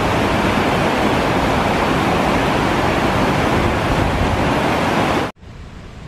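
Loud, steady rush of a waterfall pouring into churning rapids. About five seconds in it cuts off abruptly, giving way to a quieter rush of river rapids.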